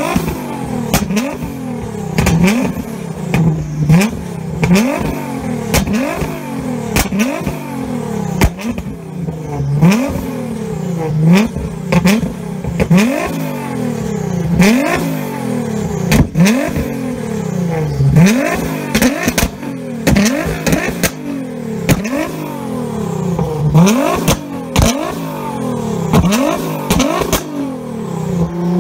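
Nissan GT-R R35's twin-turbo V6 revved hard while standing still through an aftermarket exhaust, in quick blips about once a second. Sharp pops and crackles come from the exhaust between the revs.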